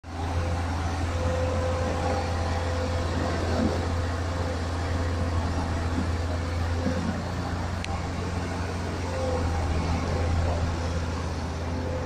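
Steady low drone of heavy diesel machinery: a trailer concrete mixer pump's engine running with an excavator working beside it.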